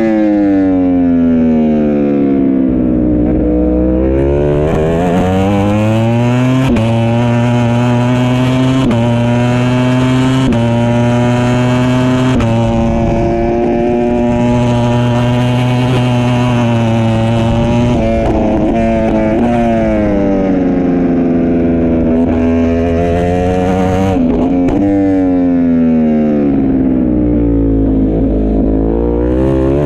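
Ducati Panigale V4 R World Superbike's V4 engine at race pace, heard from on board. The engine note drops as the rider slows for corners and climbs hard through quick upshifts about every two seconds. It falls and rises this way three times.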